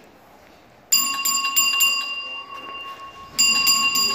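Firehouse alarm bell ringing in two rapid bursts of about five strokes a second, the first about a second in and the second near the end, its ringing tone carrying on between them. It is the house alert that a company is being called out on a run.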